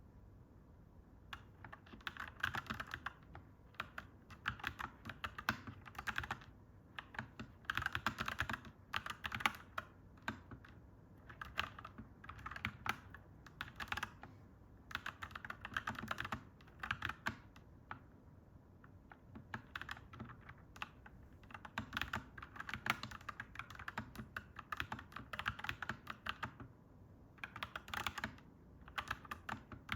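Clacky mechanical keyboard being typed on in quick bursts of a few seconds, with short pauses between bursts.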